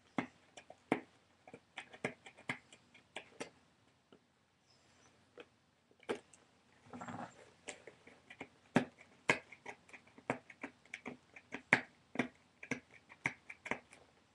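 Sharp crackles and clicks of plastic packaging being handled and pulled open, many in quick irregular succession, with a longer rustle about seven seconds in.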